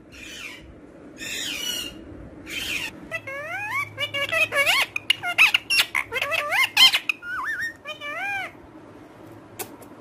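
Ringneck parakeet vocalizing: a few raspy, hissing sounds at first, then a string of quick whistled notes that swoop up and down in pitch, the chatter of a talking parrot, ending with a few sharp clicks.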